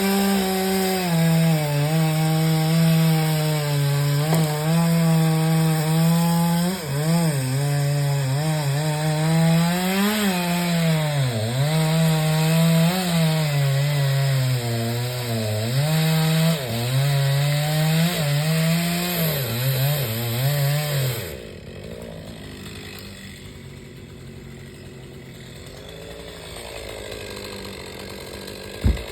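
Chainsaw running hard through wood, its engine pitch dipping and recovering again and again as it bogs under load in the cut. About three quarters of the way through it drops away to a much quieter level. There is a single sharp click near the end.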